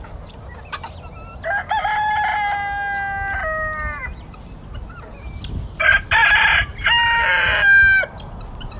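Rooster crowing twice. Each crow opens with short notes and ends in a long held note that drops at the very end. The second crow comes about four seconds after the first.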